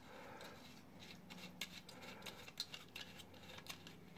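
Faint, irregular light clicks and scrapes of thin-walled 3D-printed PLA plastic parts knocking and rubbing together as they are handled and fitted by hand.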